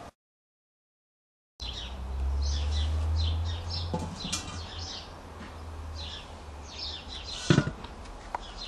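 Silence for about a second and a half, then small birds chirping over and over, with a low rumble for a few seconds and a single sharp knock near the end.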